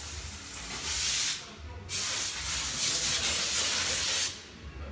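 A loud, even hiss in two stretches: the first dies away about a second and a half in, the second starts about two seconds in and stops sharply near the end.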